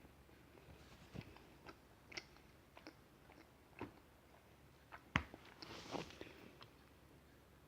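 Someone biting and chewing an unfilled chocolate Easter egg shell: faint, scattered crunches and clicks, the sharpest snap about five seconds in.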